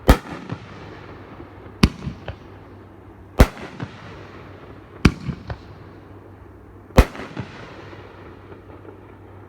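Consumer 500-gram, 9-shot peony fireworks cake firing: five loud, sharp booms about one and a half to two seconds apart, each followed by a rolling echo and a few smaller pops, then quiet after the last one. The shells are heavy, loud-breaking 'thumpers' or 'hitters'.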